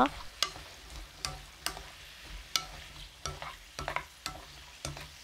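A spatula stirring garlic scapes in a frying pan, with irregular clacks against the pan over a faint sizzle of the soy-sauce seasoning.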